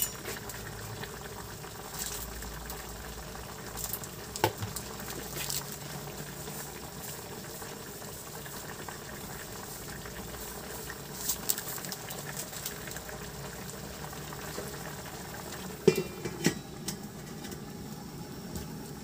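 Pork chops and potatoes simmering in sauce in a metal wok, a steady bubbling. There are a few sharp clinks of metal on the pan, the loudest cluster about sixteen seconds in as the stainless-steel lid goes on.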